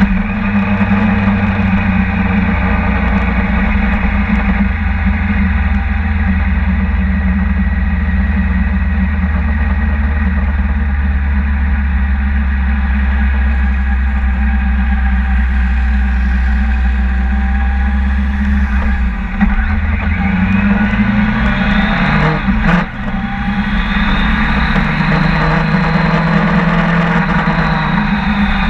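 Sportbike engine running hard at speed on a racetrack straight, with heavy wind rush on the onboard camera microphone. About three-quarters of the way through, the engine note dips briefly, then climbs again.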